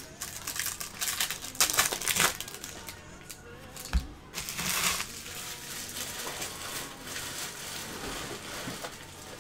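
Trading card pack wrappers crinkling and rustling as they are handled, in several bursts over the first five seconds, with one sharp knock about four seconds in.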